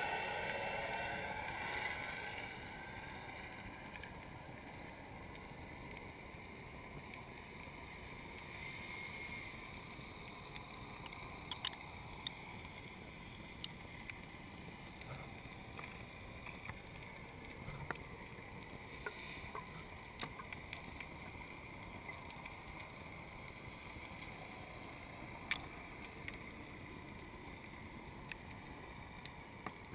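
Underwater ambience picked up by a hand-held camera near a coral reef: a steady faint hiss, louder at first and dying away over the first few seconds, with scattered sharp clicks from about ten seconds in.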